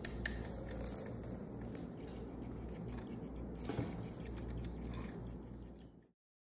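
Kittens batting plastic cat toys: many light clicks and taps over a steady low hum and a thin high whine. The sound cuts off abruptly about six seconds in.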